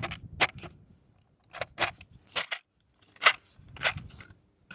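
Sharp metallic clicks and clacks, about seven spaced irregularly over a few seconds, as the flat 47-round pan magazine is set onto the top of a DPM light machine gun and latched into place.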